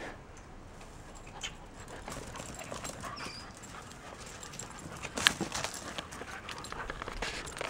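Two dogs play-chasing, their paws making quick, scattered footfalls and scuffs on brick paving and dirt, with a sharper knock about five seconds in.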